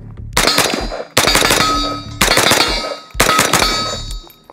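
CMMG Dissent MK47 rifle in 7.62x39 firing four shots about a second apart, each followed by a decaying ring with a metallic edge.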